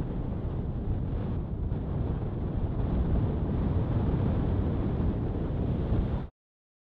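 Wind rumbling on the microphone over ocean surf, cutting off suddenly about six seconds in.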